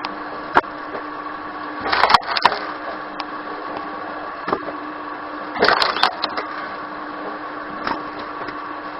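A wood-processing machine running with a steady hum, broken by bursts of cracking and splintering wood about two seconds in and again around six seconds, with a few sharp clicks between.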